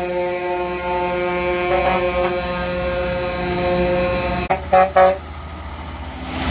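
Semi-truck air horn held in one long steady blast, then two short, loud toots about half a second apart, from race-team haulers rolling past.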